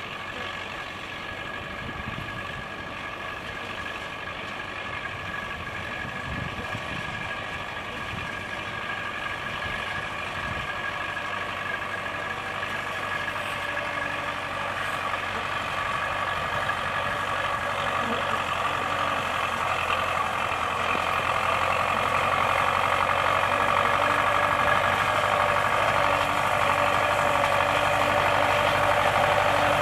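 Farm tractor engine running steadily as it tows a wheel-finger hay rake, growing louder as it comes closer.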